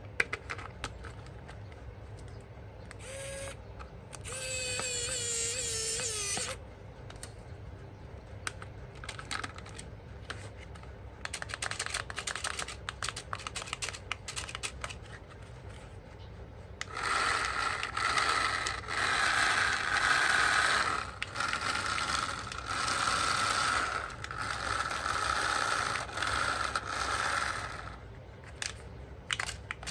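Small electric motor and plastic gears of a remote-control toy whirring in several bursts, with a wavering whine early on and scattered clicks and rattles of handling in between.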